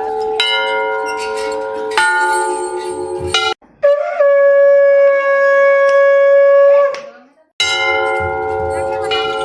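Temple bells struck a few times and left ringing, then a conch shell (shankh) blown in one long, steady note of about three seconds. After a brief gap the bells are struck again near the end.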